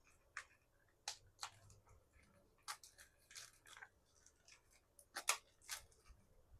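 Faint, scattered clicks and crinkles of small plastic packaging being handled, with a slightly louder pair of clicks about five seconds in.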